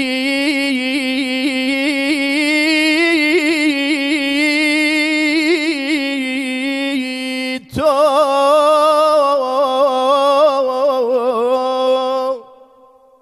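A lone male voice singing a Kurdish religious praise song to the Prophet without accompaniment, drawing out long melismatic notes with wavering ornaments. He takes a quick breath just before the 8-second mark and sings a second long phrase, which stops about a second before the end and trails off in a short echo.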